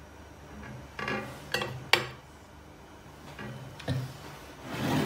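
A serving spoon clinking against a ceramic plate and a glass baking dish while food is dished up: three sharp clinks about a second in, another near four seconds, then a short scrape near the end.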